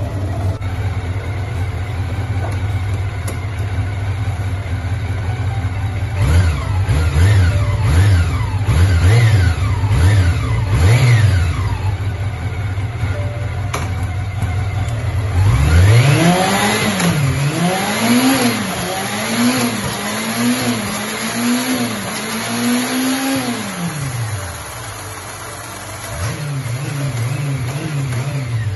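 Honda CB400 motorcycle engine idling, then blipped on the throttle in two runs of quick revs, about five short ones and then about seven higher ones, each rising and falling before it drops back to a steady idle.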